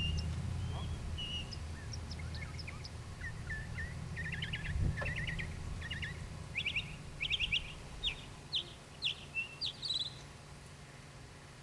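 Birds chirping, with scattered short chirps at first and then a run of quick, loud trilled phrases over the middle and latter part. A low steady hum lies underneath and fades after the first few seconds.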